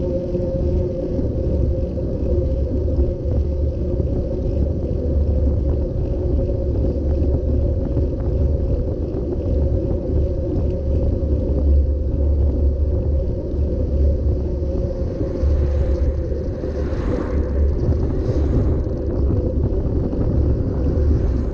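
Bicycle-mounted camera picking up steady low road rumble and wind buffeting while riding on damp asphalt, with a constant hum under it. A brief hissing swell comes about three-quarters of the way through.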